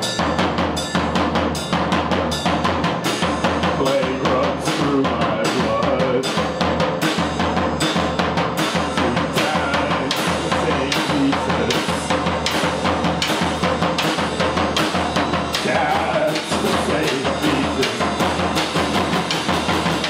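A live band playing an instrumental passage: a steady drum kit beat under trombone and another horn.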